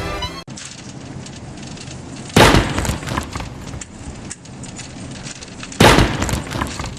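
Two sudden loud crashes about three and a half seconds apart, each dying away over about a second, over a steady crackling noise.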